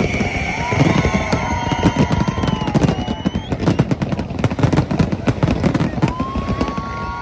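Fireworks going off in a dense, rapid barrage of bangs and crackles, with a few sliding whistle-like tones over them, fading a little near the end.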